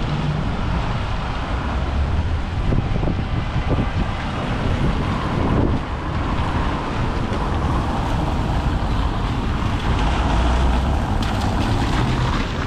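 Wind rumbling steadily on the microphone over the even hiss of a rainy, wet street.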